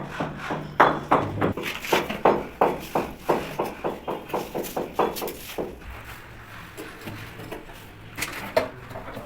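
Rapid repeated knocks, about three or four a second, growing weaker over the first five seconds or so, then a single knock near the end.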